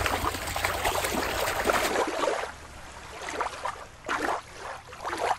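Shallow shore water splashing and sloshing as a toy is dunked and swished through it; about two seconds in the sound cuts to a quieter water sound with a few soft swells.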